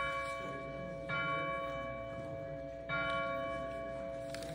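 Church bell tolling slowly: struck about a second in and again about three seconds in, each stroke ringing on and fading under the hum of the earlier strokes.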